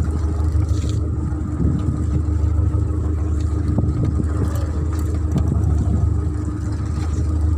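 Fishing boat's engine running steadily with a constant low drone.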